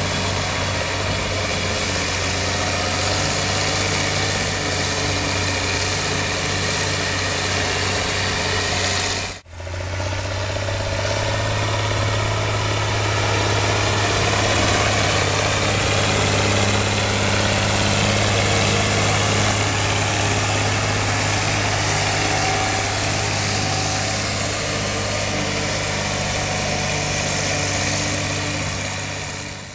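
Ursus 1614 Turbo tractor's six-cylinder turbo-diesel running steadily under load while hauling a slurry tanker. The sound breaks off for a moment about a third of the way in, then carries on at a slightly higher pitch.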